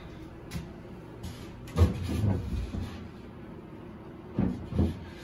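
Plywood hatch lid being lifted out of the quarter berth top and handled: a wooden knock with a second of rubbing after it, then two short wooden knocks near the end.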